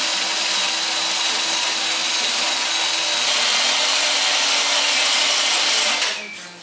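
Cordless drill spinning a wire cup brush against a steel lawnmower blade, a steady scouring hiss of wire on metal that stops about six seconds in.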